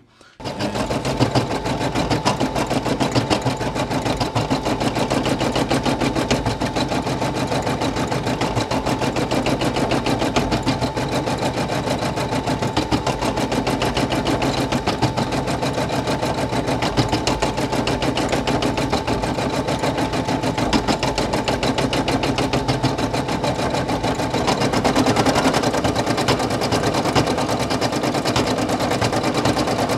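Brother PE800 embroidery machine starting up about half a second in and stitching a white fill: a steady, rapid clatter of needle strokes, a little louder near the end.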